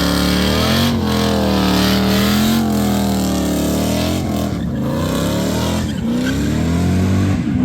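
Car engine revving hard, its pitch climbing and falling several times.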